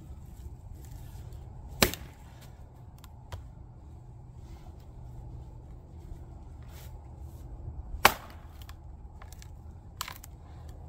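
Council Tools splitting axe striking the end of a standing firewood round: two loud, sharp chops about six seconds apart, then a lighter knock near the end.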